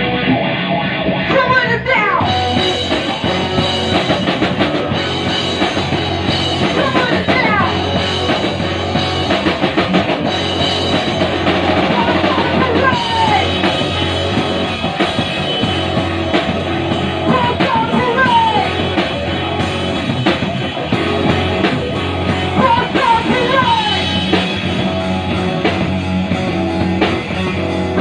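Rock band playing live: a drum kit and distorted electric guitar, loud and continuous, in a heavy rock style.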